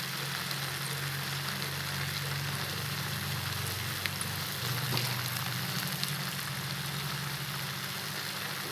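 Beef, potatoes and carrots sizzling steadily in a hot stainless pot as fish sauce is poured in, over a steady low hum.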